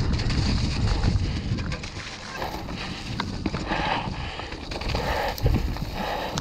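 Mountain bike riding fast down a wet dirt trail: wind rumbling on the microphone, tyres running over wet dirt and puddles, and the bike rattling and knocking over bumps, with a hard thump about five seconds in.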